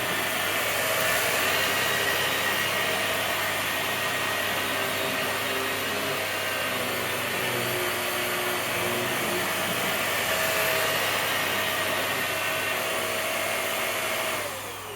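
Vax Air Stretch upright vacuum cleaner running steadily on carpet while it is pushed forward and back to pick up salt. Near the end it is switched off and the motor winds down in a falling whine.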